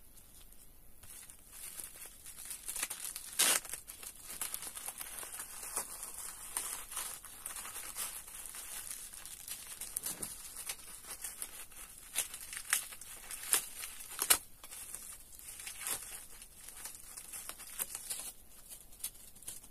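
Plastic packaging of Charm Slim Protect sanitary pads crinkling and tearing as it is opened and handled: a steady crackle of short rustles with a couple of louder sharp snaps, about three and a half seconds in and again near fourteen seconds.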